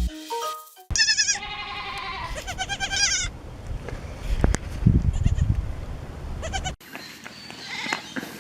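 A young goat bleating twice in quick succession about a second in, the calls high and quavering. Rustling and a sharp knock follow, and the sound cuts off abruptly near the end.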